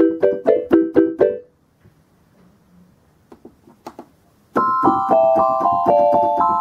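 Concertmate-1000 electronic keyboard: a quick run of short, fast-decaying notes on its Marimba 2 voice, then a few faint clicks. About two-thirds of the way in, a melody of ringing, overlapping notes with bright high overtones starts on its Music Box voice.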